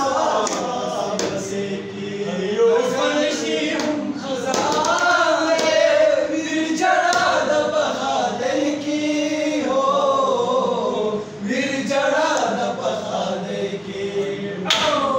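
Young men singing Pashto tapay (folk couplets) in turn and together, unaccompanied voices with no instruments.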